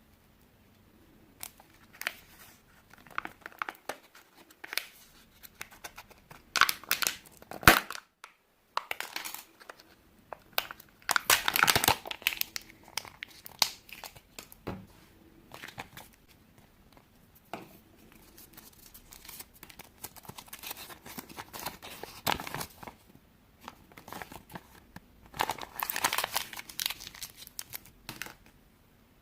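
Kinder egg wrappers being crinkled and torn open by hand in bursts of rustling, with a sharp snap about eight seconds in.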